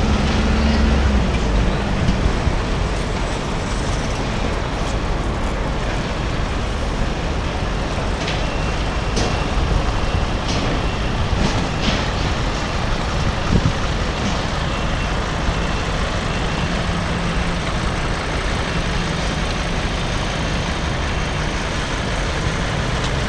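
Steady, even outdoor roar with a low hum that fades in and out, and a few light clicks.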